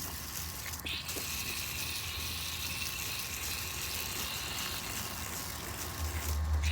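Garden hose spraying water onto an air-conditioner condenser coil to rinse off coil cleaner: a steady hiss that starts about a second in and stops near the end, from a weak, low-pressure flow.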